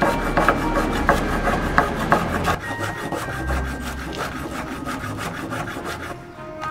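Chef's knife rapidly slicing green onions against a bamboo cutting board: a fast run of crisp chops, several a second, easing off near the end.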